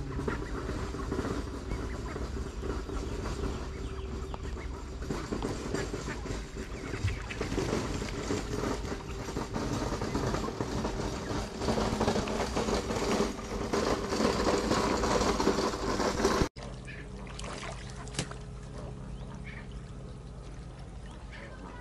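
Flock of mallard ducks and geese calling at the water's edge, a busy mix of quacks and honks. The sound drops to a quieter level about three-quarters of the way through.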